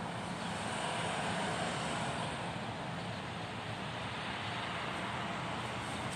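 Steady, even hum of distant city noise, with no distinct events standing out.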